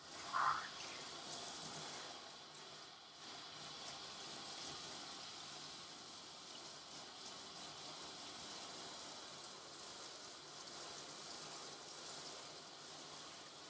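Water hissing steadily from a grooming-tub hose sprayer into a poodle's wet coat as pink color shampoo is rinsed out. A brief squeak comes about half a second in.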